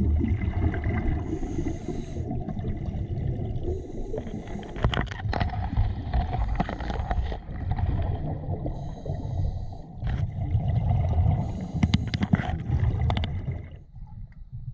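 Scuba regulator breathing heard underwater: short hissing inhalations through the demand valve alternating with longer spells of bubbling exhaled air, several breaths in a row, with scattered clicks. The sound drops off sharply near the end.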